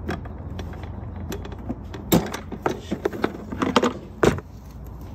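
Plastic battery tray knocking and scraping against the engine bay as it is worked free and lifted out, with a string of sharp clacks from about two seconds in and a last loud knock near the end.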